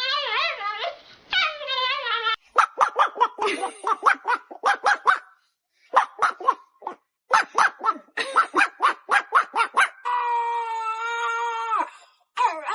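A dog vocalising: a wavering, whining howl, then two quick runs of short yelping barks, then one long, steady howl that drops in pitch at its end.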